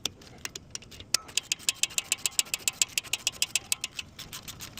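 Socket ratchet clicking rapidly and evenly, about nine clicks a second, while a 15 mm brake caliper bolt is turned out. A few scattered clicks come first, in the first second.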